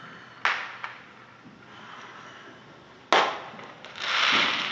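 Fireworks going off: two sharp bangs, one about half a second in and a louder one around three seconds, each with a short tail. Near the end comes a loud rushing swell of noise that rises and fades.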